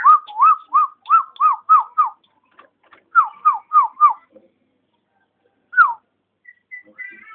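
Nias hill myna whistling a clear note that rises and falls, repeated about three times a second some seven times. After a pause come four quicker notes and then a single falling whistle, with faint short chirps near the end.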